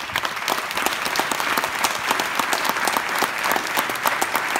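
Audience applauding at the close of a speech: dense, steady clapping from many hands.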